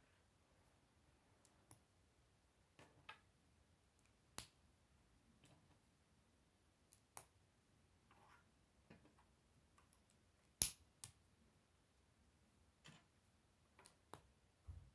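K'nex plastic connectors and rods clicking as they are handled and snapped together, scattered sharp clicks with quiet gaps between them, the loudest about ten and a half seconds in.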